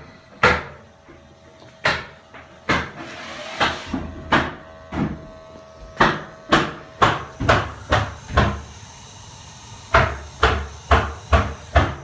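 Construction hammering: irregular sharp knocks, some ringing briefly, with a quick run of strikes near the end, over a faint steady hum.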